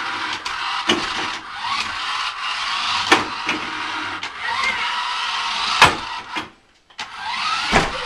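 Toy remote-control stunt car's electric motors whirring steadily, with a few sharp knocks as the car bumps about. The whirring cuts out for a moment a little after the loudest knock, then starts again.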